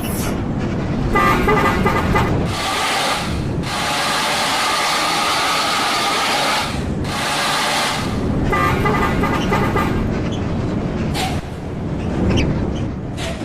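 Bus telolet 'basuri' musical air horn playing multi-note tunes in several bursts, with stretches of loud hiss between them, over the low rumble of the bus's engine.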